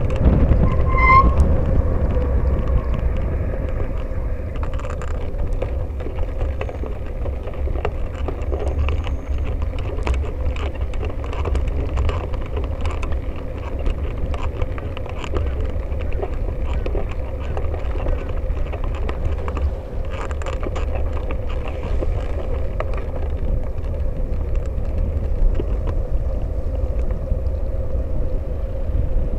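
Wind buffeting the microphone of a bicycle-mounted camera on a moving bike, a steady low rumble mixed with tyre and traffic noise from cars queued alongside on a wet road. A short beep about a second in.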